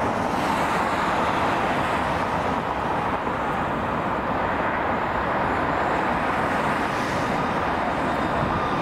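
Steady rushing roar of road traffic, with a thin jet-engine whine coming in near the end as an airliner approaches.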